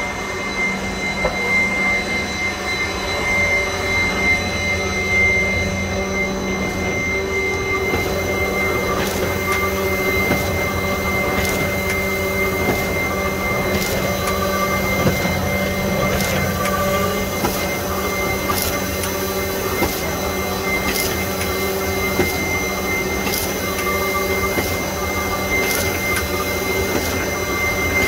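Label printing press running: a steady mechanical hum with a constant high whine. From about eight seconds in, light clicks come roughly once a second.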